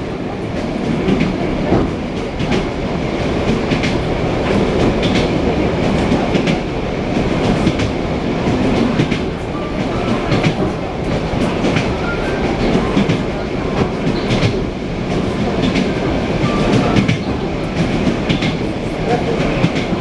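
Wheels of an ED9M electric multiple unit clattering over rail joints, heard inside the carriage: repeated sharp clicks over the steady rumble of the moving train.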